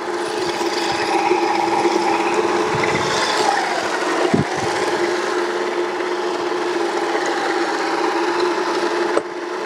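Toro eFlex battery-electric reel greensmower with a groomer unit fitted, running while mowing and mulching the clippings: a steady mechanical whirring hum from the spinning reel and groomer. Its pitch dips briefly and recovers about four seconds in.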